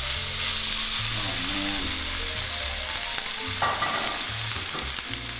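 Wagyu ribeye and filet steaks, freshly laid on a hot flat-top griddle, sizzling with a steady searing hiss.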